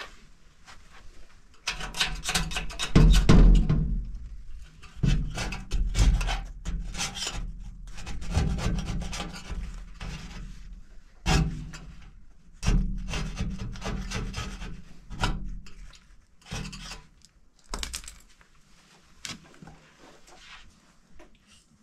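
Paintbrush strokes rubbing paint onto a door, in repeated scratchy bursts of a second or two with short pauses between.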